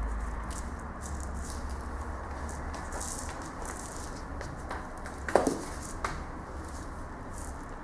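A cat's rattle ball toy, a twine-wrapped ball with feathers, being batted and rolled across a wooden floor by a kitten: repeated short rattling bursts and light taps, with one louder knock about five seconds in.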